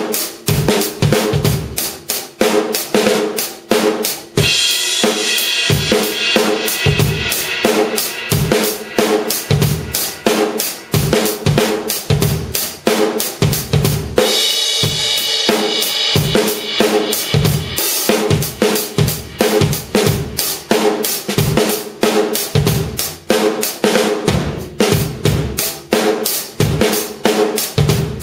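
C and C Custom drum kit with TRX cymbals played in a steady groove of kick, snare and hi-hat. Cymbal crashes wash over the beat twice: about four seconds in and again halfway through.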